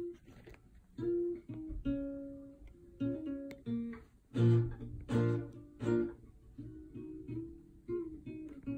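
Nylon-string classical guitar played by hand: single plucked notes ringing and fading, with three louder strummed chords in the middle.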